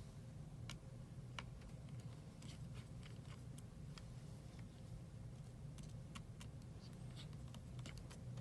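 Faint, scattered light clicks and ticks of a small precision screwdriver and tiny screws on the metal cover plate over an iPhone X's battery connector as it is unscrewed, over a low steady hum.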